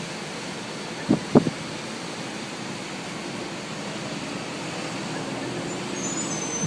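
Steady city road traffic with a vehicle passing, under a constant rush of noise. Two short, sharp knocks come about a second in, and a thin high squeal starts near the end.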